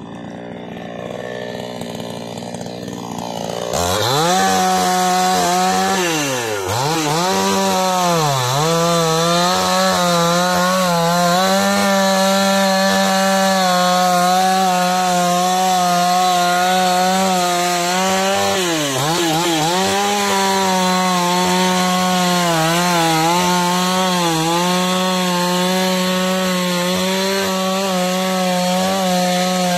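Two-stroke chainsaw running at high revs while cutting through a fallen tree. It starts abruptly about four seconds in, and its pitch drops and recovers a couple of times as the chain bites into the wood.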